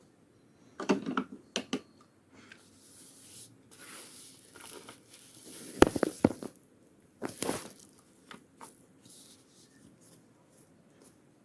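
Irregular handling sounds from a toy washing machine and cloths: scattered sharp plastic clicks, loudest about six and seven and a half seconds in, with fabric and crinkly rustling in between.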